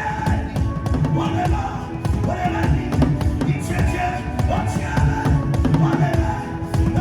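Music driven by drumming: dense, steady drum strokes with held instrument tones over them.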